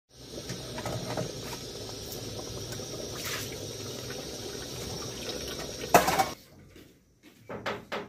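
Chicken-foot soup bubbling steadily in an aluminium pot, with small crackles through it. A sharp loud knock about six seconds in, followed by a shorter sound near the end.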